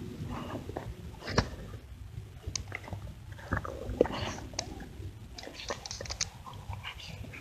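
A young dog mouthing and chewing close to the microphone: irregular clicks and crunches of teeth.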